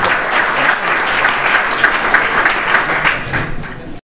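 Audience applauding, a dense patter of many hands clapping that tapers off in the last second and then cuts off suddenly.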